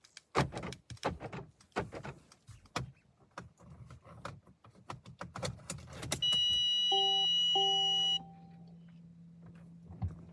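Mercedes-Benz C220 (W205) that will not crank or start: a run of sharp clicks over the first six seconds, then a loud steady electronic warning tone for about two seconds with a lower chime sounding twice, and a low steady hum from about seven seconds in, with no engine cranking.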